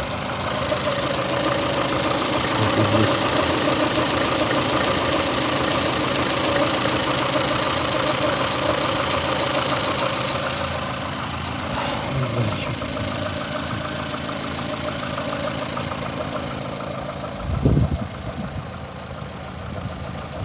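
VAZ-2115 engine running at idle with an extraneous noise, as if something is rubbing. A short low thump near the end.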